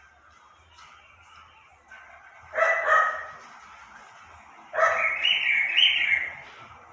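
A pet animal calling twice: a short call, then a longer, wavering call that rises in pitch.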